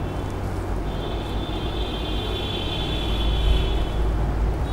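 Steady low background rumble with a noisy hiss over it. A faint high-pitched whine of several close tones comes in about a second in and fades out near the end.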